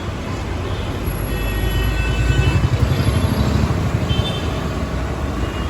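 Street traffic noise: a vehicle engine's low rumble grows louder around the middle, with faint brief high tones over it.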